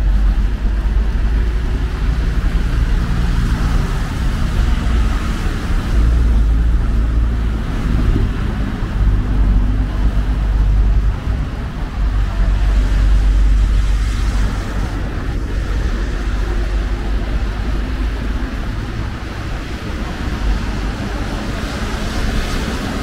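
City road traffic: cars passing on a snowy street, a steady low rumble of engines and tyres.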